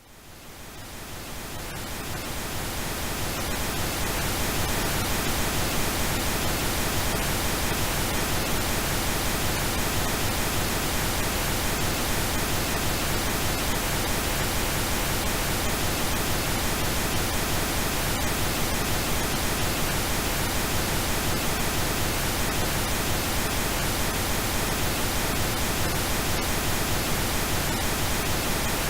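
Synthetic pink noise, a steady even hiss, fading in from silence over the first few seconds and then holding level.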